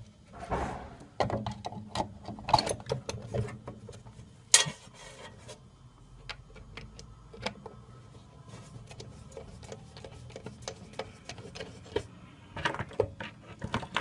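Hands working wires and a red plastic alarm cover into place on the cabinet's alarm unit: scattered clicks, taps and plastic knocks. They come thick in the first few seconds, with a sharp knock about four and a half seconds in, thin out to light ticks, then cluster again near the end.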